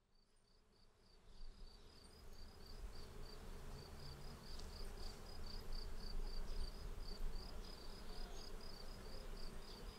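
A cricket chirping steadily in short high-pitched pulses, about four a second, over faint outdoor ambience with a low rumble. The sound fades in after about a second of silence.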